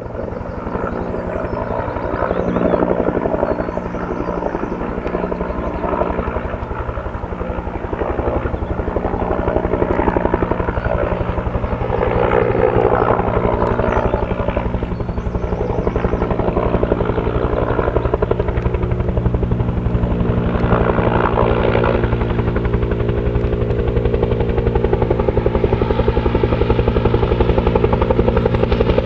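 Two-bladed Bell UH-1 Huey-type helicopter in flight, its rotor beating steadily and growing louder as it approaches.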